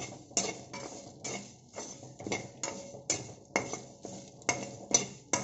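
Steel spatula scraping and knocking against a metal kadai while stirring dry-roasting dals, cumin, dried red chillies and garlic, about two strokes a second, each stroke ringing briefly.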